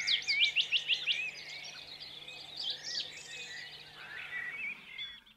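Birds chirping and singing, several quick calls overlapping in the first second or so, then sparser calls, over a faint steady low hum.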